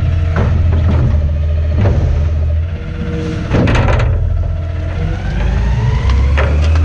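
Garbage truck engine running steadily, with its pitch rising in the second half, and several sharp knocks and clatters.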